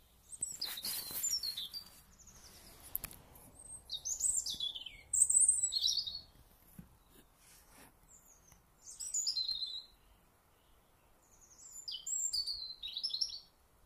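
A songbird singing in short, quick phrases of high notes, four phrases a few seconds apart.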